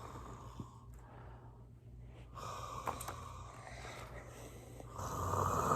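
A person imitating snoring: a breathy snore about two and a half seconds in, then a louder, longer snore starting near the end.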